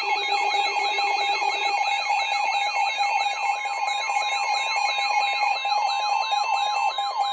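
Several electronic alarm tones sounding together: rapid falling sweeps about four a second over a warbling high tone and steady single-pitch tones. A low steady tone drops out about two seconds in, and another steady tone joins soon after, like a weather-radio alert tone.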